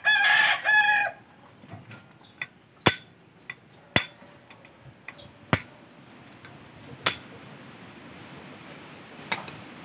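A rooster crows once at the start, the loudest sound. Then a hammer strikes a metal pipe about five times, a second or more apart, each a sharp single knock.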